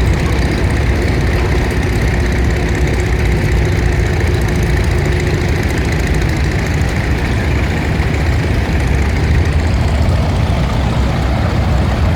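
Tractor engines running steadily as tractors parade past. A faint steady tone sits over them for the first half.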